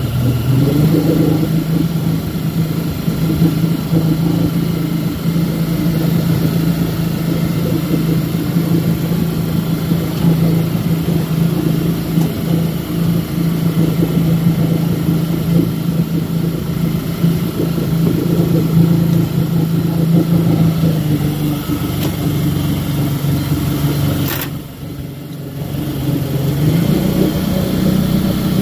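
Boat engine running steadily under way, a constant hum over wind and water noise. Near the end the engine note drops, a sharp click cuts in and the sound falls away briefly before the hum picks up again.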